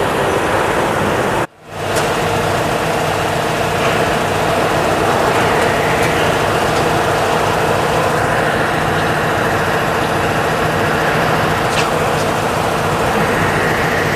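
A steady mechanical hum like an engine idling, with a short dropout about a second and a half in.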